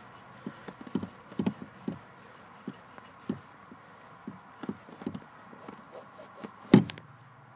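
Irregular knocks and taps of a Cole Haan leather dress shoe pumping a car's accelerator pedal, with one loud thump near the end.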